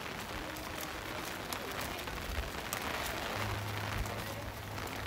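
Light rain falling on wet paving: a steady hiss with faint scattered drip ticks. A low steady hum comes in a little past halfway.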